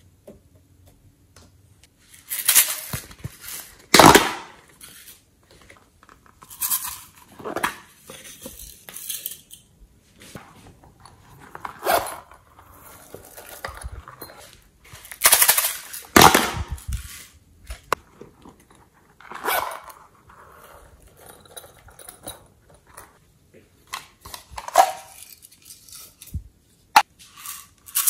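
Plastic piping bag and plastic trays being handled and squeezed over a tray of slime: irregular rustling and crinkling, with quiet gaps between. The loudest comes about four seconds in and again around fifteen seconds.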